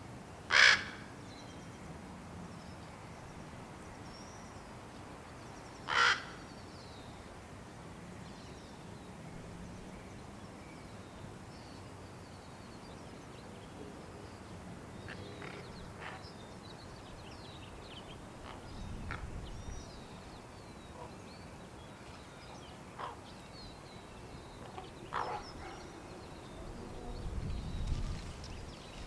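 Fledgling ravens giving short, harsh begging calls: two loud ones, about half a second in and at six seconds, then several fainter ones later. Faint high chirping runs underneath, and a low rumble comes twice in the second half.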